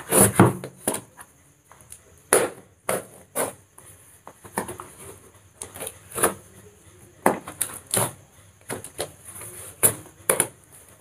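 Packing tape on a cardboard parcel being slit and torn open with a pointed tool, in irregular short scraping and ripping bursts with cardboard rustling, loudest in the first second.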